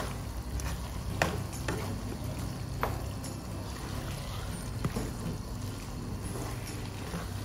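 A wooden spatula stirring bitter gourd and mince in a frying pan: soft scraping and a few sharp knocks of the spatula against the pan, over a low steady background.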